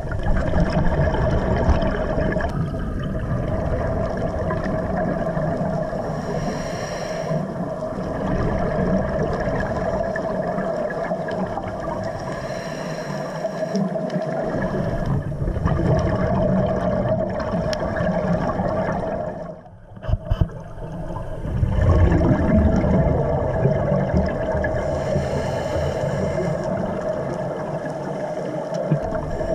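Underwater sound on a scuba dive: a steady muffled rumble and hum with gurgling water. The level dips briefly about twenty seconds in.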